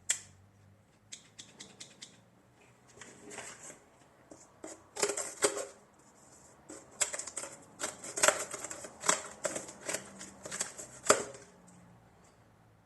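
Metallic clicks and snaps of a NexTool Flagship Pro folding multi-tool being handled, its parts opened and closed, in irregular bursts that grow busier after about seven seconds.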